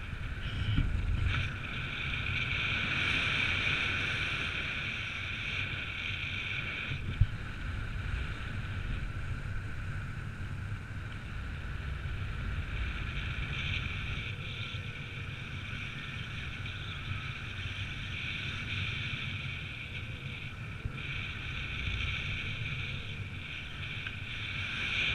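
Wind noise on the camera's microphone from the airflow of a paraglider in flight. It is a low, buffeting rumble under a steady higher hiss, with one sharp knock about seven seconds in.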